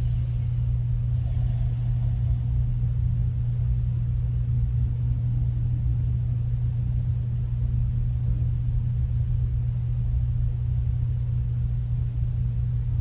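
A steady low rumble that holds at the same level throughout, with nothing else standing out above it.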